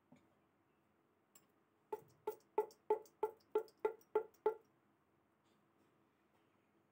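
Nine quick ringing strikes, about three a second, starting about two seconds in, each with a short pitched ring that dies away.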